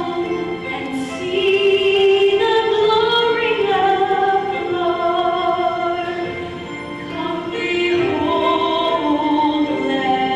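Music: classical-style singing, with long held notes that move from pitch to pitch and a short lull about two-thirds of the way through.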